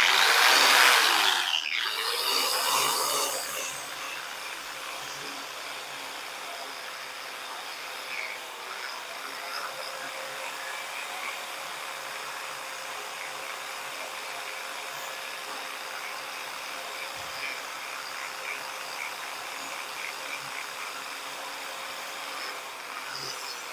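Old 4.5-inch angle grinder with a wire wheel running against a rusty steel plate, stripping off the rust. Loudest for the first three or four seconds, then a steady, quieter whir.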